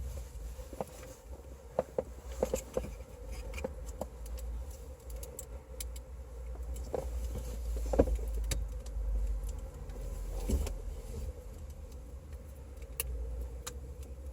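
Scattered light clicks and knocks of car parts and tools being handled while the Accord's power-window switch is swapped, over a steady low rumble.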